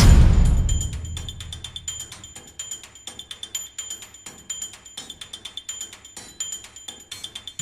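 Background music: a loud passage fades out over the first second, then a lighter, fast, even percussion beat with high ringing tones.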